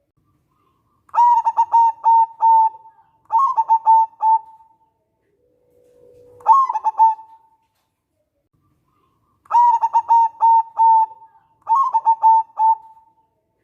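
Zebra dove (perkutut) cooing: five short phrases of quick staccato coos, each lasting about a second with pauses between them. The third phrase opens with a low drawn-out note before the coos.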